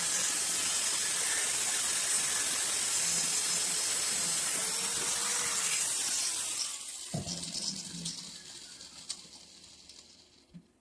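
A spinning power tool runs with a steady hiss. About six and a half seconds in it is switched off and winds down, fading out over a few seconds, with a few small clicks near the end.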